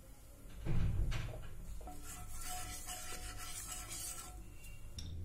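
Wooden spatula rubbing and scraping across a non-stick frying pan as it spreads melting ghee, after a thump about a second in.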